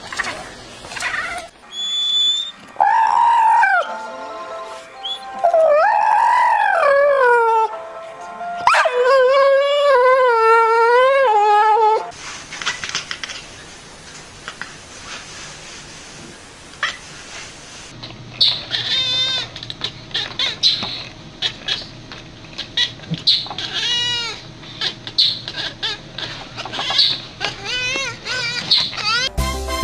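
Cats vocalising: long, loud, wavering yowls through the first twelve seconds or so, then, after a quieter stretch, many short, high chirps and trills in the last ten seconds.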